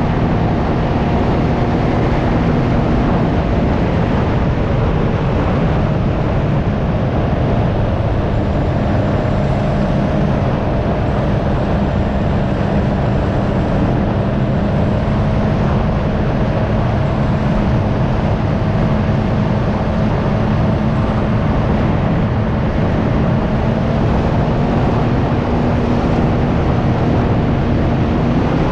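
Can-Am Ryker 900's three-cylinder engine running at a steady cruise, its pitch holding nearly constant, under heavy wind rush on the microphone.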